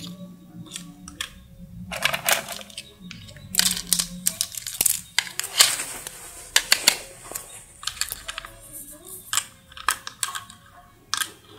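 Plastic toy cooking pieces being handled, knocking and clattering against each other and the tiled floor in an irregular string of clicks and knocks.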